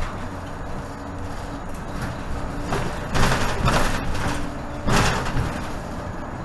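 Inside a 2018 Nova Bus LFS diesel bus under way: steady engine and road rumble, with two loud bursts of noise about three and five seconds in.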